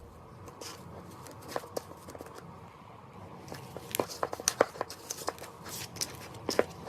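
Slime being squeezed and worked by hand, with irregular sticky clicks and pops that come thick and fast from about halfway in.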